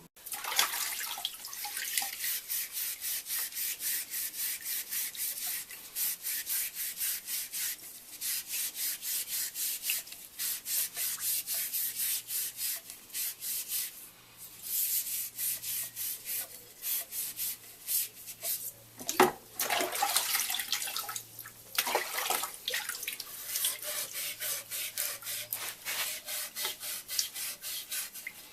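Scotch-Brite abrasive pad rubbed in quick back-and-forth strokes, about four a second, over the welds on stainless steel tube fittings, polishing them after pickling. The strokes pause briefly a few times.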